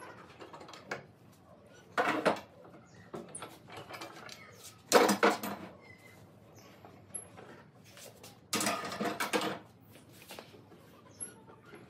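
Steel pipe clamps being released and lifted off a glued wooden table base, the metal pipes and clamp jaws clanking in three louder bursts of knocks. The loudest clank comes about five seconds in, and a longer rattle follows near the end.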